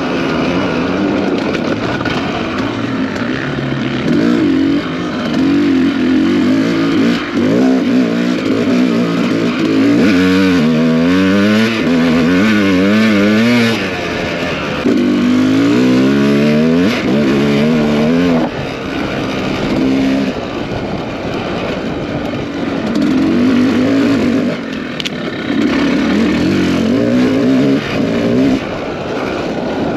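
Off-road racing motorcycle engine under hard throttle, revving up and dropping back again and again, with the pitch swinging most widely midway through.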